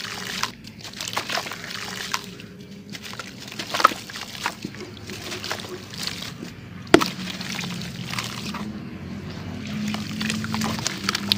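Soft sandy lumps crumbled by hand, grains and clumps pattering and trickling into a bucket of muddy water, then sloshing as the lumps are dipped and squeezed under the water. A single sharp knock about seven seconds in.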